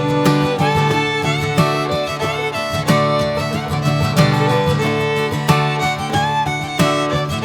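Instrumental background music with a steady beat and a sliding, fiddle-like string melody over plucked strings.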